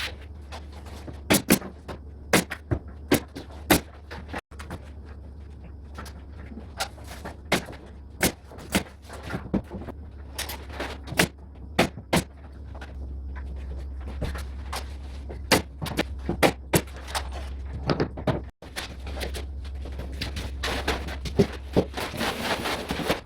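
Interior carpentry work: a long run of sharp, irregular knocks and bangs, at times several a second, over a steady low hum, with a rasping scrape near the end.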